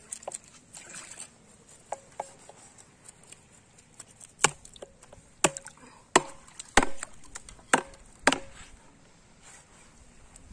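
A knife chopping into fish on a wooden surface while the fish is being cleaned. There are two light knocks, then about six hard chops, a few with a short ringing note from the blade.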